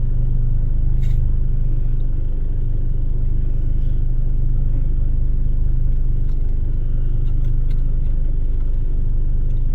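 Steady low mechanical rumble with a constant deep hum, like an idling motor, and a couple of faint ticks.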